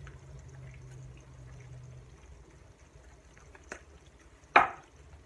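Quiet kitchen handling sounds as dried oregano is shaken from a spice jar over the sauce, with a faint low hum that stops about two seconds in. A small click, then a single sharp knock about four and a half seconds in, as a spice jar is set down on the wooden board.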